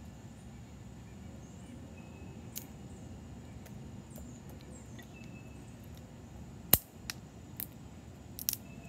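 A knife splitting thin sticks of wood into kindling: a few sharp cracks as the wood gives way, one much louder than the rest about two-thirds of the way through.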